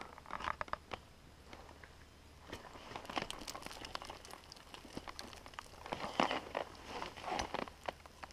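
Crinkling and crunching handling noise from a winter climber's clothing and gear moving close to the microphone, with scattered light clicks. The clicks come in clusters: near the start, around three seconds in, and again from about six to seven and a half seconds in.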